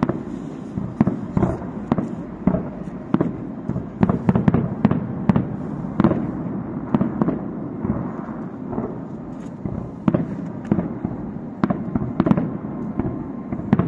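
Aerial firework shells bursting in a rapid, uneven series of booms and sharp cracks, several a second with no pause.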